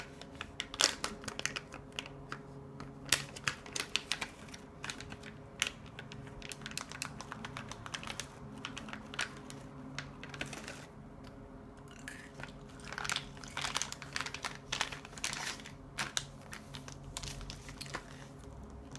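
Wintergreen gum being chewed close to the microphone: irregular moist clicks and crackles, some in quick clusters, over a faint steady hum.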